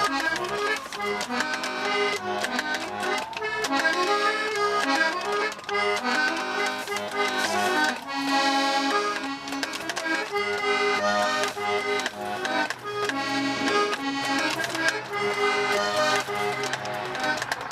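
Instrumental background music: a busy melody of many quick notes over changing lower notes.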